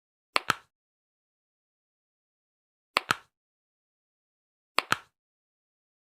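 Three sharp double cracks, one pair about half a second in, another about three seconds in and the last near the end: joints cracking during a chiropractic adjustment.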